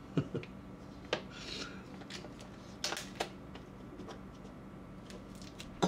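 A tight, silvery plastic bag crinkling and rustling as a small metal network switch is worked out of it by hand, with a handful of short, sharp crackles, the clearest about three seconds in.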